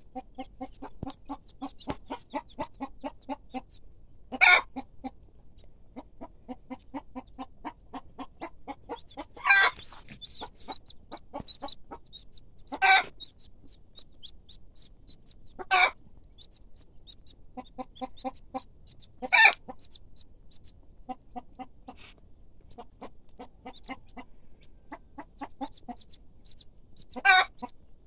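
Chickens: quick runs of low clucks, high chick peeps, and six loud short squawks spread a few seconds apart.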